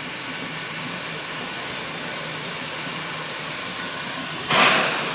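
Shay geared steam locomotive standing at rest with a steady hiss of steam, broken about four and a half seconds in by a sudden louder gush of hiss that fades within half a second.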